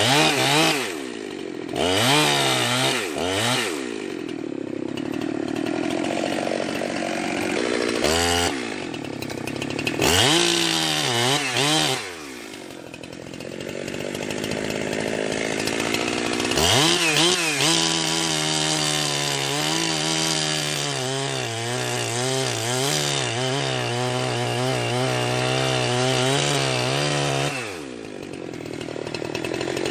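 Jonsered 2071 two-stroke chainsaw revving up and dropping back several times, then held near full throttle for about ten seconds with its pitch wavering before it drops back near the end, as when working in wood.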